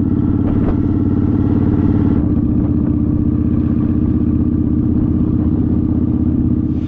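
Motorcycle engine running at a steady, unchanging note.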